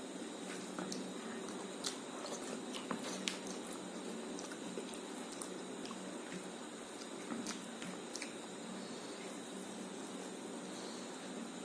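A person eating rice with egg curry: short, faint wet clicks and chewing sounds, scattered irregularly over a steady background hiss and hum.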